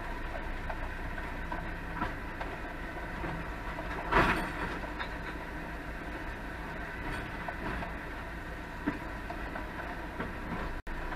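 Faun Rotopress rear-loader garbage truck working a bin: a steady mechanical drone, with a loud clatter about four seconds in as a wheelie bin is tipped and shaken out at the rear and a smaller knock later. Heard muffled from inside a car behind the truck.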